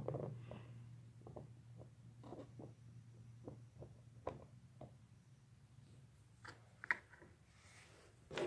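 Faint, scattered taps and clicks of small plastic posable toy figures with suction-cup feet being handled and set down on a hard surface, over a low steady hum that fades in the first half.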